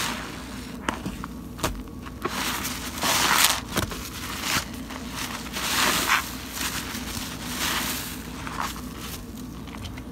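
A soapy, water-soaked sponge squeezed by hand in thick suds: repeated wet squelches with a crackle of bursting foam, roughly one squeeze a second.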